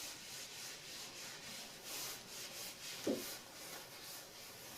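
A gloved hand rubbing headliner fabric down onto the tacky adhesive on a fiberglass headliner, in a run of soft, repeated rubbing strokes to smooth and stick the material. A brief low sound comes about three seconds in.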